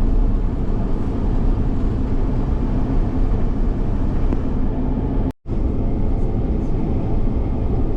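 A moving car, heard from inside: a steady low rumble of engine and road noise. The sound cuts out completely for a split second a little after five seconds in.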